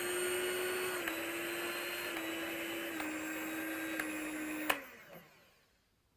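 Orpat HM-207 hand mixer's motor running with a steady whine, dropping in pitch in a few small steps as the speed switch is clicked down. It is switched off with a click near the end and winds down.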